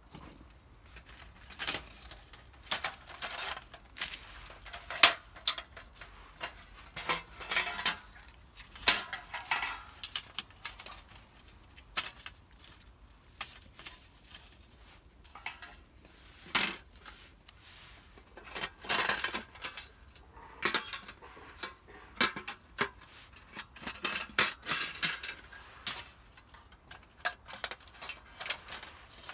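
Metal camping gear being handled: irregular clinks and rattles mixed with short rustling bursts.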